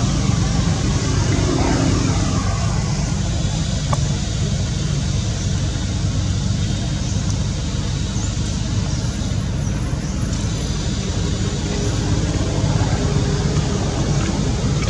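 Steady background rumble and hiss, strongest in the low end, with a few faint rising and falling tones in the first three seconds.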